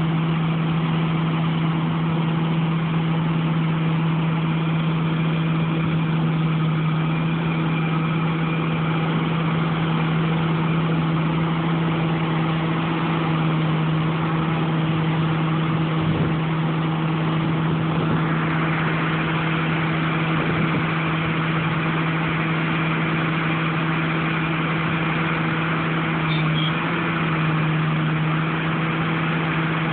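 A harvest machine's engine running steadily at constant speed, a continuous drone with no revving. Past the halfway point a rushing hiss joins it and stays.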